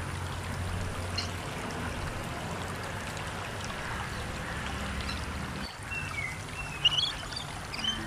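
Running water like a small stream, under a low held music tone that fades out a little past halfway. Near the end come a few short high chirps.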